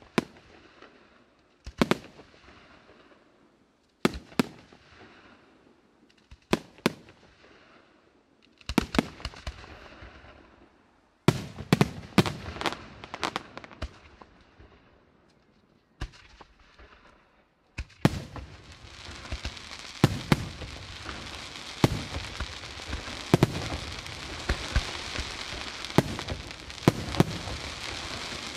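Aerial firework shells bursting with sharp bangs, at first one to two seconds apart, then in quicker clusters. From about two-thirds of the way in, a dense, continuous crackle fills in under the bangs as the barrage builds.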